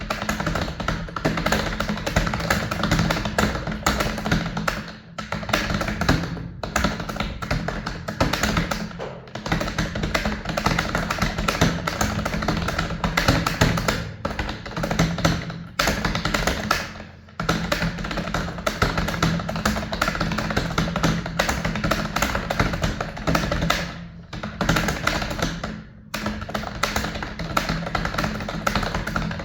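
Fast touch-typing on a computer keyboard: a steady stream of key clicks, broken by short pauses every few seconds.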